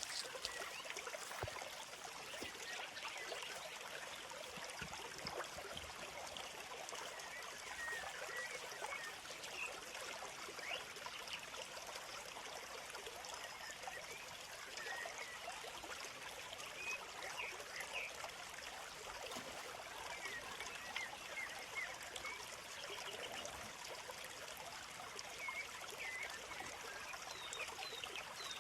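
A small stream babbling steadily, with small birds chirping now and then.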